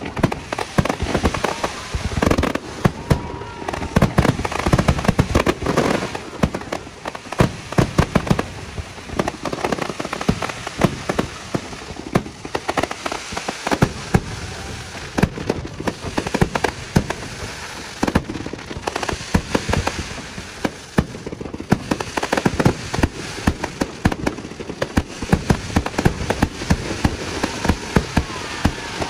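Fireworks going off at close range in a rapid, unbroken barrage of bangs and crackling.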